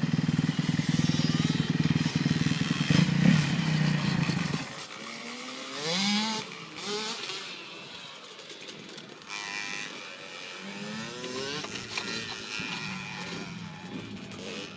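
Pit bike engines revving on the track, climbing in pitch and dropping back several times as the bikes accelerate and shift. For the first few seconds a louder, steady low drone sits over them, then cuts off suddenly.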